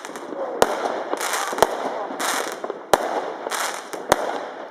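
Fireworks going off: four sharp bangs about a second apart, with bursts of hissing crackle between them.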